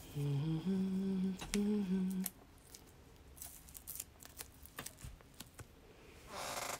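A person humming a short phrase of a few held notes, followed by scattered light clicks and a rustle near the end from handling sewing materials.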